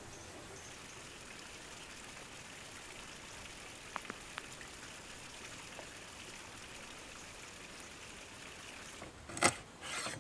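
Steady faint outdoor hiss with a couple of light clicks about four seconds in. Near the end a kitchen knife chops down through a whole fish onto a wooden cutting board: one sharp, loud knock, then a second lighter one.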